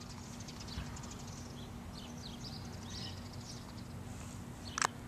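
Outdoor ambience with small birds chirping over a steady low hum, and one sharp click near the end.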